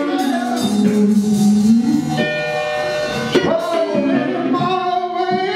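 Church service music: a voice singing over instrumental backing, with several long held notes.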